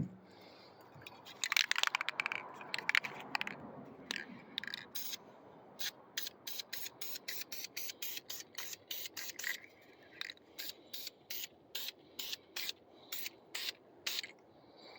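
Krylon aerosol spray paint can spraying: an uneven hiss for the first few seconds, then a long run of short, even spurts, about three a second.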